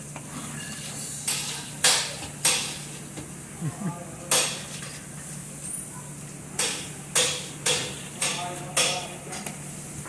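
Short, sharp swishing strokes of wet cleaning work, about nine of them, several bunched together near the end, over a steady low hum.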